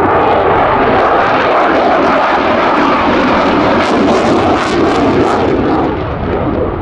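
F-16 fighter jet's Pratt & Whitney F100 turbofan running loud and steady in afterburner as the jet pulls a high-g display turn, fading slightly near the end.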